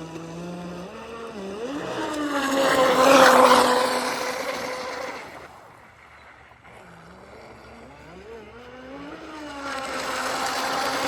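Radio-controlled boat's motor whining as the boat passes close twice: the whine swells to its loudest about three seconds in, fades away, then builds again near the end as the boat comes back in close.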